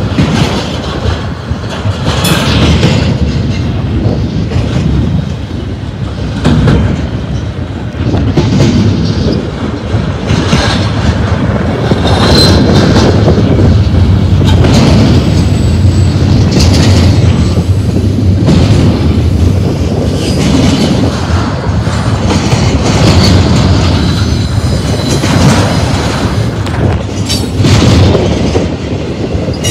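Double-stack container train's well cars rolling past close by: a continuous steel-wheel rumble with repeated clacks as the wheel trucks go over the track, and a few brief high wheel squeals.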